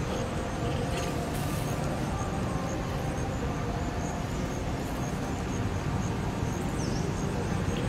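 Steady outdoor background noise, heaviest in the low end, with faint short high chirps scattered through it.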